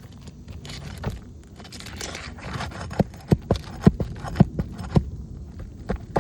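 Metal roof snake scraping and prying under asphalt shingles to break their adhesive seal. Partway through there is a run of sharp clicks and knocks, about three a second.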